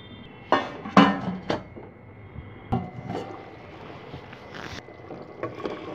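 Clanks and knocks of a stainless steel cooking pot being handled with its lid and spoon: a handful of sharp strikes, most of them in the first three seconds.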